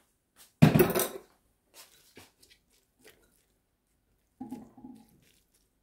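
A loud clatter of a spatula against a cast-iron pot about half a second in, then a few light clicks and scrapes as the pilaf is stirred. Near the end there is a short low pitched sound.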